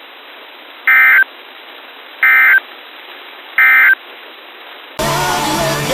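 Three short bursts of Emergency Alert System SAME digital data tones, about a second and a half apart, over a hissy broadcast background: the end-of-message code that closes an alert. Music starts about five seconds in.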